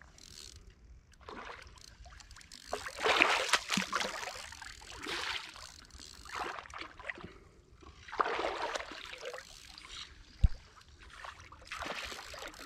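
A hooked carp thrashing at the surface in shallow water: irregular bursts of splashing and sloshing, loudest about three seconds in and again later on. A single sharp knock sounds about ten seconds in.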